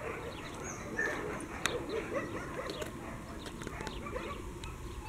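Faint dog whimpers and yips, short scattered chirps over a low background hiss, with a few small clicks.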